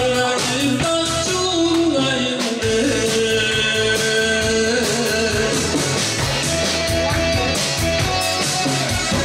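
A man singing into a hand-held microphone, with long held notes, over backing music with a steady drum beat. Near the end the voice stops and the instrumental carries on.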